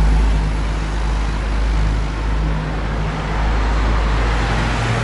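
Steady road traffic noise from a busy road close by, with a strong low rumble throughout.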